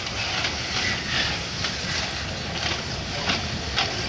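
Narrow-gauge steam locomotive JŽ 83-052 moving slowly with its train: a steady rumble of the locomotive and rolling stock, with short hissing beats about twice a second.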